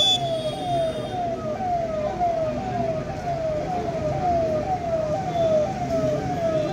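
Electronic vehicle siren on a fast repeating falling sweep, about three cycles a second. A short shrill whistle blast cuts off right at the start, over low traffic rumble.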